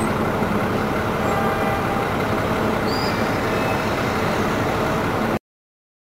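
Steady road and traffic noise heard from a moving vehicle, with a low engine hum under it; it cuts off suddenly about five seconds in, leaving silence.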